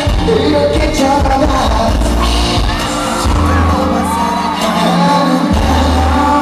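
Live pop music with a heavy, pulsing bass beat and a voice singing over it, loud and steady, heard from the audience of a concert hall.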